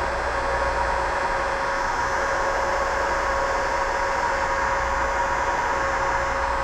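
Electric heat gun running steadily, a constant rush of blown air with a steady hum, as it shrinks heat-shrink tubing over a wire connector.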